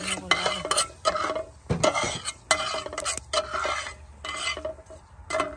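A utensil stirring white sesame seeds as they toast in a pan, in repeated scraping strokes with clicks against the pan and a faint sizzle.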